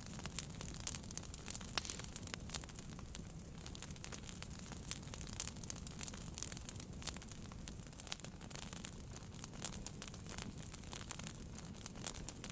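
Wood fire burning in a fireplace: irregular sharp crackles and pops over a soft steady low rumble of the flames.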